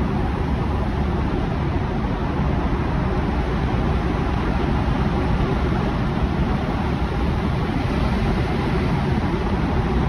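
Steady road noise of a car driving through a road tunnel, heard from inside the cabin: tyres and engine making an even, mostly low sound that holds constant.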